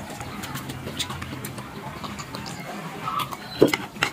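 Eating sounds: scattered light clicks and taps as chopsticks pick at fried meatballs and vegetables on a woven bamboo basket plate, over a low background murmur.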